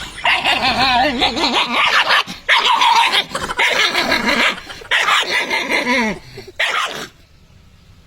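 A dog barking and growling at its own reflection in a mirror, in a string of harsh bursts that die down about seven seconds in.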